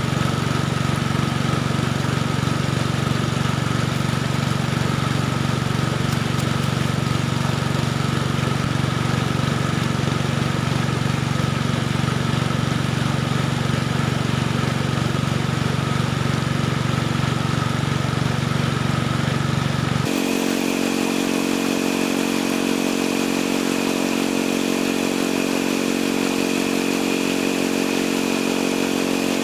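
Small engine of a river suction pump used for gold dredging, running steadily. About twenty seconds in, the engine note changes abruptly to a higher-pitched hum.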